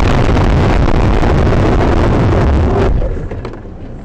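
Loud, steady rushing rumble with no clear tone inside a crashed car's cabin, dropping away suddenly about three seconds in.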